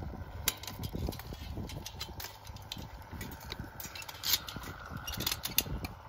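Irregular metallic clicks and clinks of fence wire and hand tools being worked at a fence post, several sharp ones about half a second in, near the middle and near the end, over a low rumble of wind on the microphone.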